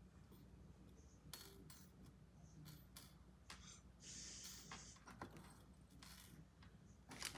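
Faint, scattered small clicks of clay beads being picked out of a plastic bead organizer tray by fingertips, with a brief soft rustle about four seconds in.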